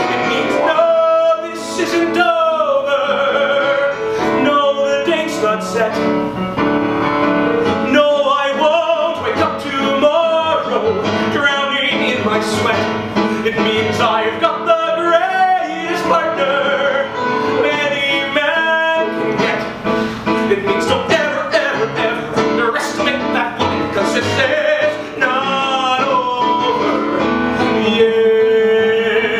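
A man singing a musical-theatre song in a full, operatic style over piano accompaniment.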